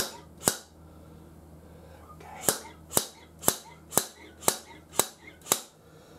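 Repeated sharp knocks on a motorcycle front fork, about two a second: a pair near the start, then seven more after a short pause. The fork oil seal is being tapped out gradually, a little at a time.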